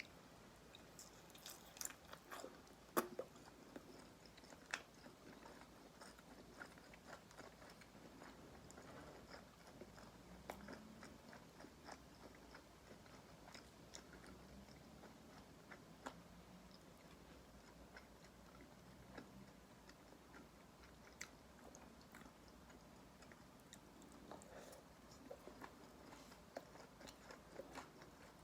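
Faint biting and chewing of crispy karaage (Japanese fried chicken): scattered crunches and mouth clicks, the sharpest about three seconds in.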